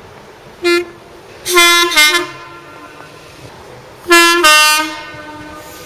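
Train's two-tone horn: a short toot, then two louder blasts, each sounding a higher note and then dropping to a lower one.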